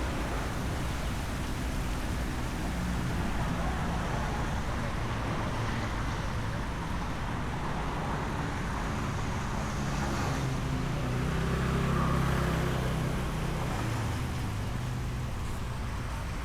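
Road traffic noise with a motor vehicle's engine humming past, swelling to its loudest about twelve seconds in.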